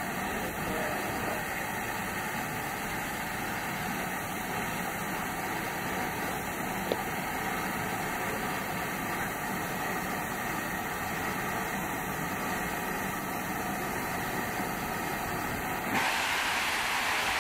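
LNER Thompson B1 4-6-0 steam locomotive 61306 standing, hissing steam steadily. About sixteen seconds in a louder, sharper hiss of escaping steam starts.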